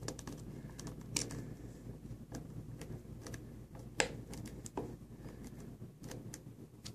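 Scattered light clicks and taps of a small screwdriver turning the hatch screws on the plastic back of an Intermec CN70e handheld computer, with a sharper click about a second in and another about four seconds in.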